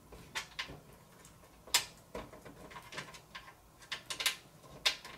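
Scattered clicks and knocks of a PC case being handled as its side panel is fitted and closed. There are about eight sharp hits at irregular intervals, and the loudest comes just under two seconds in.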